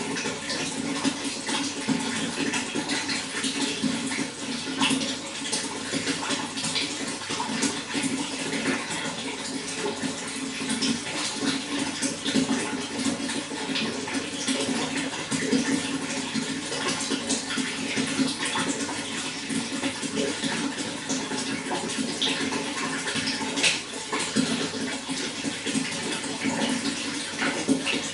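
Running water flowing and splashing steadily, a continuous rushing with many small splashes and gurgles.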